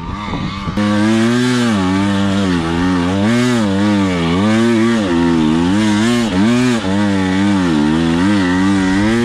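Single-cylinder KTM enduro dirt bike engine under load on a steep loose climb, starting about a second in. Its revs rise and fall about once or twice a second as the throttle is worked for traction.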